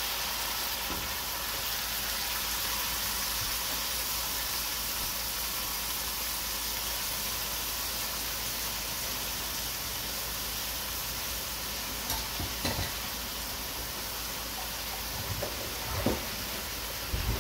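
Sliced onions frying in hot oil in an aluminium pot, a steady sizzle. A few light knocks come near the end.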